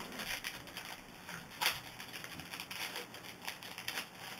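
Trading-card pack wrapper crinkling and cards being rustled in the hands as a pack is opened and gone through, with a sharper crackle about one and a half seconds in.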